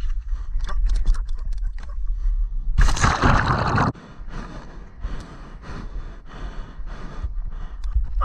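Wind buffeting an action camera's microphone while riding a kiteboard across the water, with irregular knocks and slaps from the board on the chop. About three seconds in there is a loud rush of water and spray lasting about a second, which cuts off suddenly.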